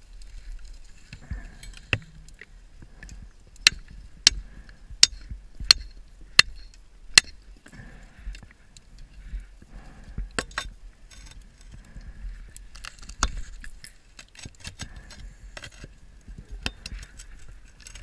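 Steel pry bar knocking against the steel of a sunken warship's door and bulkhead underwater. There is a run of six sharp metallic strikes about two-thirds of a second apart, then a few scattered knocks. Between them the scuba regulator's breathing and exhaust bubbles rush.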